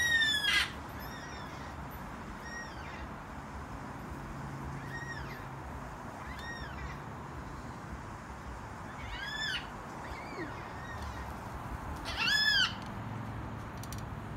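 Yellow-tailed black cockatoos calling: repeated drawn-out calls that rise and fall in pitch, a loud one at the start and another about twelve seconds in, with fainter calls between.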